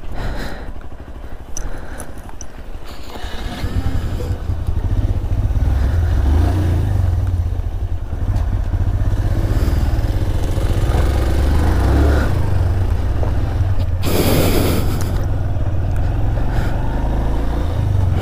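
Honda Livo motorcycle's 110 cc single-cylinder engine as the bike pulls away and rides off, with a heavy low rumble building from about three or four seconds in. A brief loud rushing noise about fourteen seconds in.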